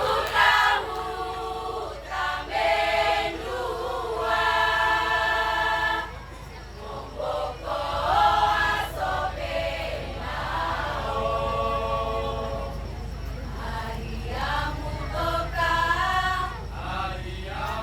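A choir singing, in phrases of long held notes with short breaks between them.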